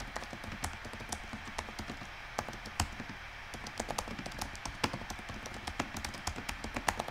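Typing on a laptop keyboard: quick, irregular key clicks over a faint steady hiss.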